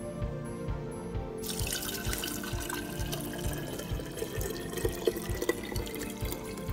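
Fermented ginger ale pouring in a steady stream through a fine mesh strainer into a jar, splashing over the strained ginger pulp. It starts suddenly about a second and a half in, over background music with a steady beat.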